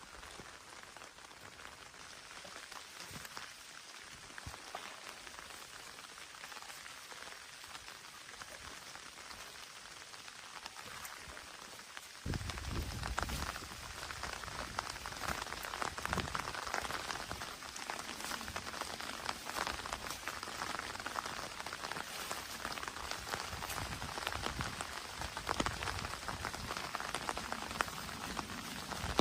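Steady rain falling, with many separate drop ticks through it. It turns suddenly louder and fuller about twelve seconds in.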